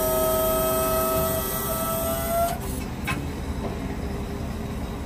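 A steady mechanical whine from the pickup's rear-mounted folding hitch as its arm moves, holding one pitch and then cutting off about two and a half seconds in, followed by a single click.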